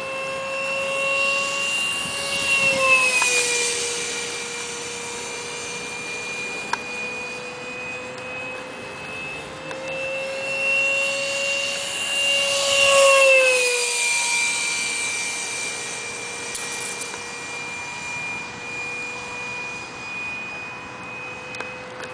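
Electric ducted-fan whine of an RC Mirage 2000 model jet flying at speed: a steady high whine that makes two passes, about three and thirteen seconds in, each growing louder with a rush of air, then dropping in pitch as the jet goes by.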